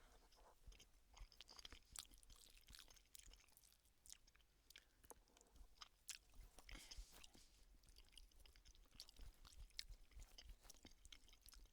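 Faint chewing of a chicken tikka and rice ready meal, with irregular small wet clicks and smacks of the mouth.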